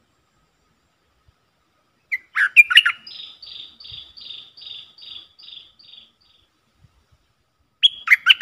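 Bulbul calling: a sharp burst of notes, then a run of about nine quicker, higher repeated notes that fade away. Another sharp burst comes near the end.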